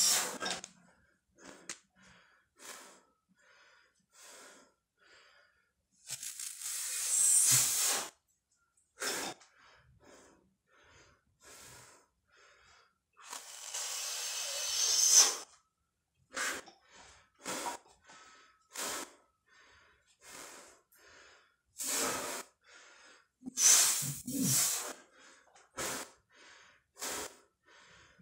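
A man breathing hard and forcefully through a set of barbell back squats: short sharp breaths every second or so, with two longer drawn breaths of about two seconds each.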